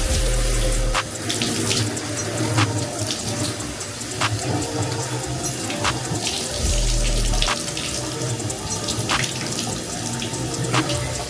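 Water running steadily from a faucet into a bathtub, broken by many short sharp sounds.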